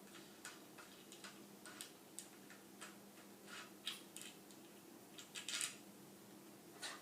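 Faint, irregular clicks and taps of a wooden loom stand's boards and metal hardware being handled and fitted together, a little louder around the middle, over a faint steady hum.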